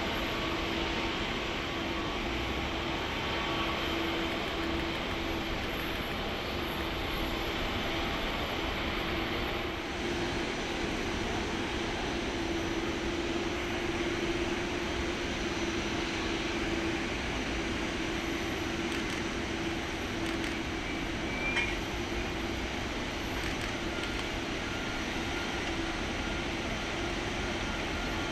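Boeing 777-200ER's jet engines at taxi power: a steady rushing noise with a steady hum tone running through it.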